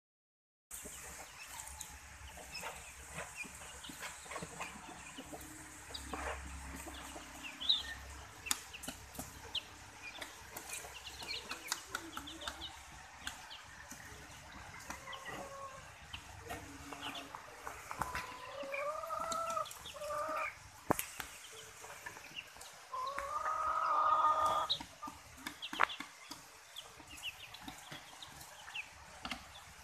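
Bantam and silkie chickens with their chicks: a steady scatter of short, high chick peeps and hens clucking. Louder drawn-out chicken calls come around two-thirds of the way through, the longest and loudest lasting about a second and a half.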